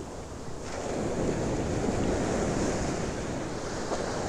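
Ocean surf washing up a beach, a steady rushing that swells about half a second in, with wind buffeting the microphone.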